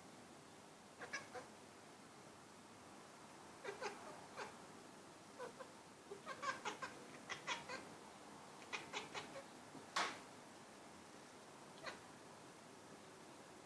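Domestic cat chirping and chattering at birds it is watching: clusters of short, quick calls, several a second, with the loudest a single longer call about ten seconds in.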